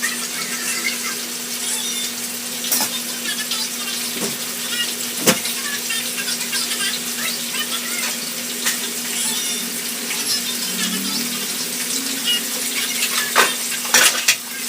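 Kitchen cooking noise: a steady hiss with a low hum under it, broken by about five sharp knocks, two of them close together near the end.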